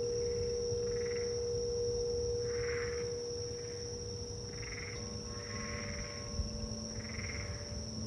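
Quartz crystal singing bowl holding a steady, slowly fading tone; about five seconds in, a second bowl starts to sing with a lower pure tone and overtones. Under the bowls, frogs croak in short calls about once a second.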